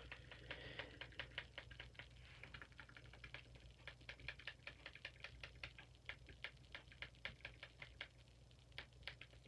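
Faint, rapid clicking of fidget cube buttons, about three to four clicks a second, with a short pause near the end.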